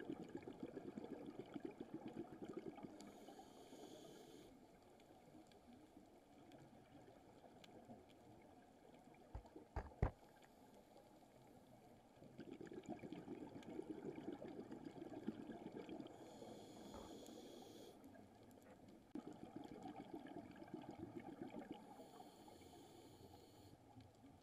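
Scuba diver breathing through a regulator, heard from inside an underwater camera housing: three bursts of gurgling exhaled bubbles, each ending in a short higher hiss. A couple of sharp knocks come near the middle.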